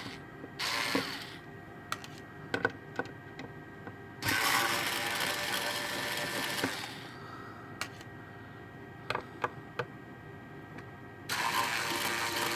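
Small electric screwdriver running in bursts of a couple of seconds as it backs screws out of a graphics card's cooler. Light clicks of screws and metal parts come in the gaps between bursts.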